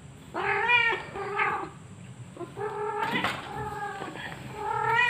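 A domestic cat in heat yowling: about five drawn-out, rising-then-falling calls one after another.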